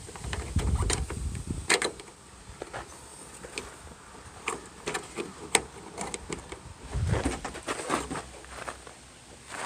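Scattered clicks, taps and light knocks of a door latch cable and its spring being worked into a van door latch by hand, with dull bumps in the first second and again about seven seconds in.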